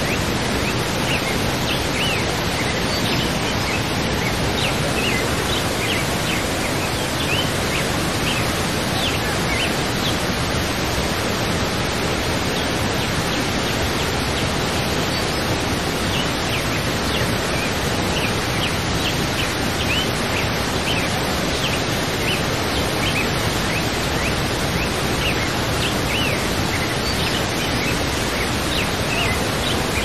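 Waterfall's steady rush of falling water, with small birds chirping in short calls scattered over it.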